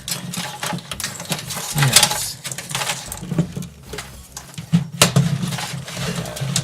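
Hands working power-supply cables and plastic parts inside a PC case: a busy run of rustling, clicks and light knocks.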